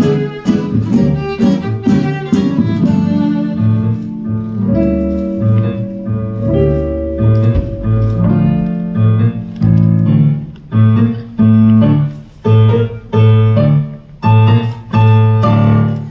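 Live instrumental music on bowed strings and piano with a deep bass line. In the second half it breaks into a run of loud, short, accented chords.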